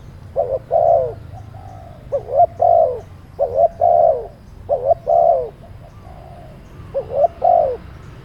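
A dove cooing repeatedly: about six phrases, each a short note followed by a longer coo, with a pause of about a second and a half before the last phrase.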